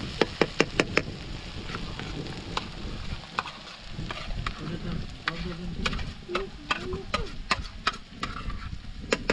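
Food frying in a pan while a utensil stirs it, knocking against the pan: a quick run of about five taps in the first second, then scattered single knocks over a steady sizzle.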